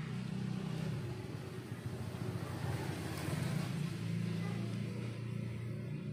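A motor vehicle engine running steadily with a low hum, its noise swelling about three to four seconds in and easing off again.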